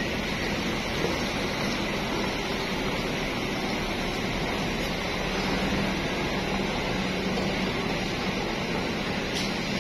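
Diesel engine of a large coach bus running as the bus pulls slowly across a gravel lot, a steady hum with a faint low tone.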